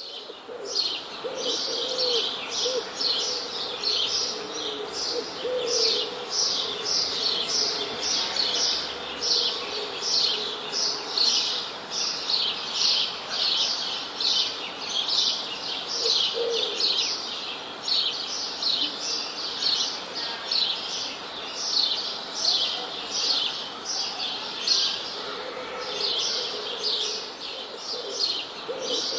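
Songbirds chirping continuously in quick, high, repeated notes, several times a second, with a lower call now and then.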